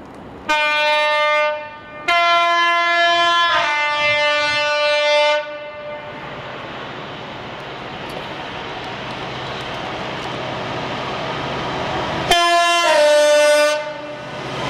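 Class 59 diesel locomotive's two-tone horn: a short blast, then a long blast that steps down to a lower note. The rumble of the approaching locomotive and train builds steadily, and near the end comes a further blast, high note then low.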